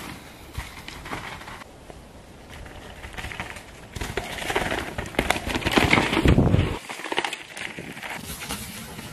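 Mountain bike riding a dirt forest trail: tyres rolling over loose dirt and the bike's chain and frame rattling. It builds as the bike comes past, is loudest about six seconds in, and the low rumble cuts off suddenly just before seven seconds.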